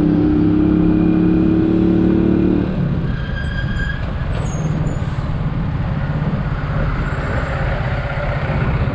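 Italika DT 125 motorcycle's single-cylinder engine running while riding in traffic. The engine note holds steady and slightly rises for about three seconds, then drops to a lower, quieter running sound. There is road and traffic noise throughout, with a brief faint high squeal a few seconds in.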